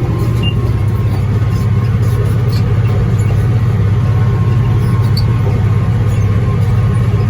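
Tractor running steadily under load, driving a New Holland BR 750 round baler that is picking up and rolling hay into a bale; a constant low engine hum with machinery noise over it.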